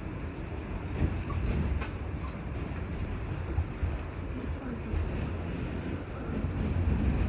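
Steady rumble of an R46 subway car running along the track, heard from inside the car, with a few sharp clacks from the wheels.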